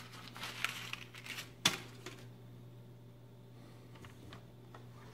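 Rustling and crinkling handling noise in the first two seconds, with one sharp click a little under two seconds in, then a few faint ticks over a steady low hum.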